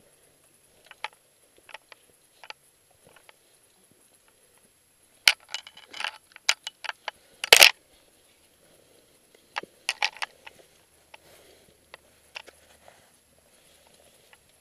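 Boots and gloved hands scrambling over limestone rock: scattered sharp clicks, knocks and scrapes in irregular clusters, the loudest knock about seven and a half seconds in.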